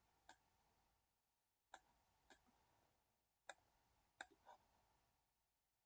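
Faint computer mouse clicks: about six short, sharp clicks at irregular intervals.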